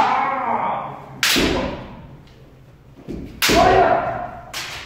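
Kendo men strikes: sharp cracks of bamboo shinai on the head guard, each with the heavy thud of a stamping step, at the start, a little over a second in, about three and a half seconds in and near the end. Drawn-out kiai shouts follow the first and third strikes.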